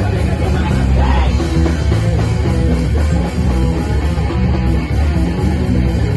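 A rock band playing loud distorted electric guitars over bass and drums, dense and steady.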